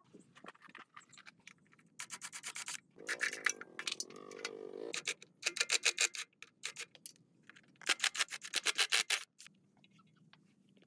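Fast, repeated scraping strokes on metal in several bursts of about a second each, with a denser, lower scrubbing stretch in the middle: hand cleaning of rusty parts.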